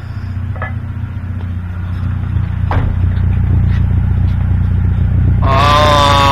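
Volkswagen engine idling steadily through its aluminum muffler after a rev, with a few light knocks. Near the end a loud steady horn-like tone starts and holds.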